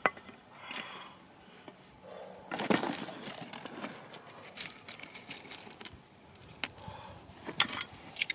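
Loose stones and gravel clattering and scraping as a hand sifts through the rubble, with a few sharp clicks of stone on stone.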